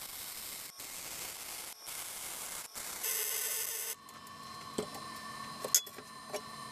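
MIG welding arc from a Lincoln Electric 210MP welder crackling and hissing on steel tubing, laid as a run of short stitch welds about a second each with brief pauses between. About four seconds in the arc stops, and a few light metal clinks follow.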